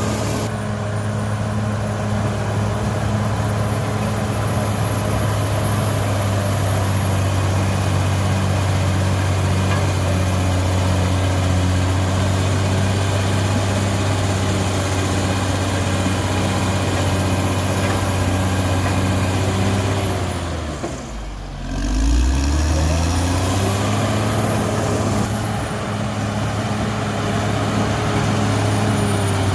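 Cat D6R XL bulldozer's diesel engine running steadily, with a steady high whine above it. About 21 seconds in the engine speed drops sharply for about a second, then climbs back up.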